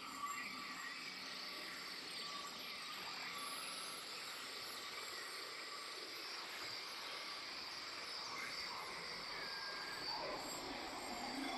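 Jungle ambience: a steady hum of insects with scattered high bird chirps and short whistled calls over it.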